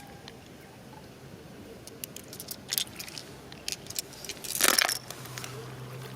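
Scattered light clicks and taps of small hard objects, with a louder rasping burst about four and a half seconds in, followed by a faint steady low hum.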